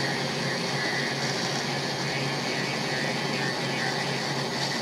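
Black & Decker rotary tool running steadily at low speed, its coarse, about 60-grit sanding drum grinding down the molded rubber of a pistol grip. Not very loud.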